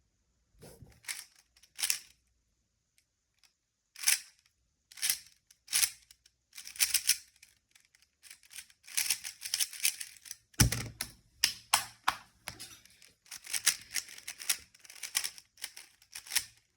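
3x3 speedcube being turned fast by hand: bursts of rapid plastic clicking as the layers snap round, with short pauses between groups of moves, and the turning gets dense and continuous in the second half. One sharper, heavier knock stands out about two-thirds of the way through.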